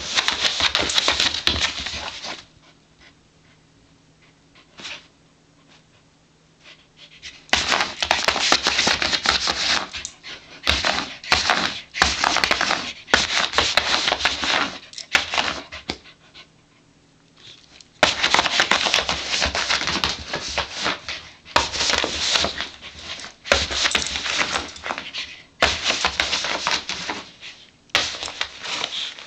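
A corgi panting hard while shaking and tearing an empty cardboard cereal box, the cardboard crackling and ripping. The sound comes in bouts, with a lull of a few seconds about two seconds in and a shorter one past the middle.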